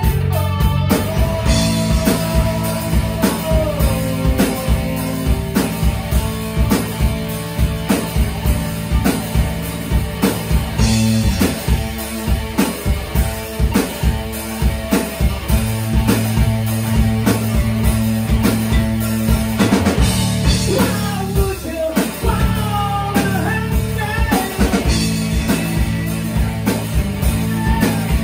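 Live rock band playing a cover song: a steady drum-kit beat, electric guitar and bass, with a man singing lead through the PA in stretches.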